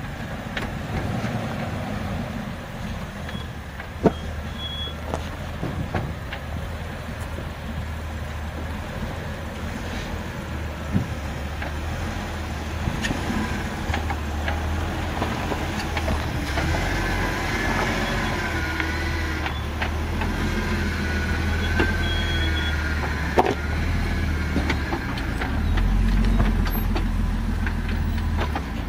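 Jeep Wrangler engine running at low speed as it works up a rocky trail towing a teardrop trailer, a steady low rumble with a few sharp knocks from tyres and rocks.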